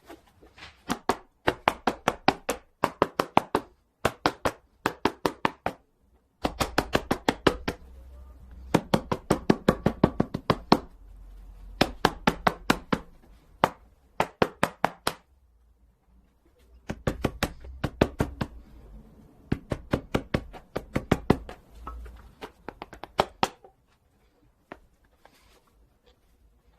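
A leather baseball glove being pounded by hand to break it in and shape the pocket: sharp knocks at several strikes a second, in bursts of a few seconds with short pauses between them. The strikes thin out to a few faint taps near the end.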